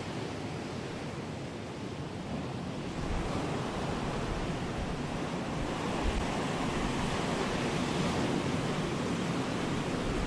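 Ocean surf breaking and washing up the beach in a steady rush of water that swells a little about three seconds in.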